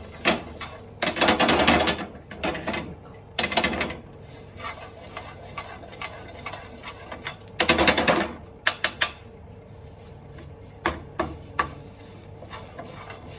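Spoon scraping and stirring a ginger, ajwain and fennel mixture in a non-stick frying pan, in three rapid rattling bursts with a few single knocks between.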